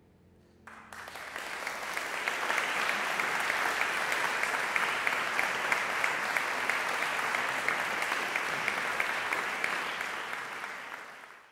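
The last piano chord dies away, then an audience breaks into applause under a second in. The clapping swells, holds steady and starts to fade just before it cuts off.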